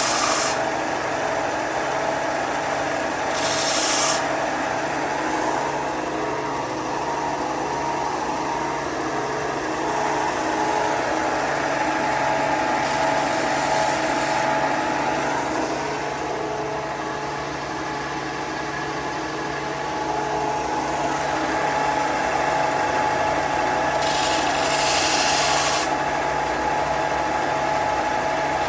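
Woodworking power tool running steadily with a constant motor whine, with a few brief bursts of high hiss, about three in all.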